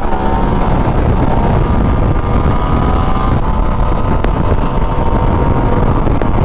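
Motorcycle engine at steady cruising speed on the freeway, its note faint and slowly drifting under a loud, constant rush of wind on the camera microphone.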